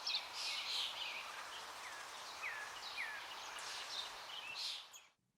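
Outdoor ambience of several birds chirping and calling over a steady background hiss, with three short downward-sliding whistles in the middle. It cuts off abruptly near the end.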